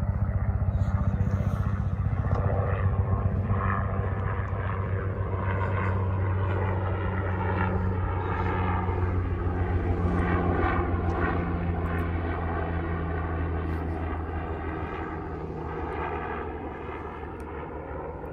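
Light helicopter flying overhead: a rapid, steady rotor beat over a low engine drone, slowly growing fainter as it moves away.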